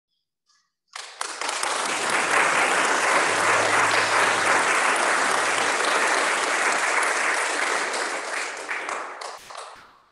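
Congregation applauding: a burst of clapping that starts suddenly about a second in, holds steady, and dies away near the end.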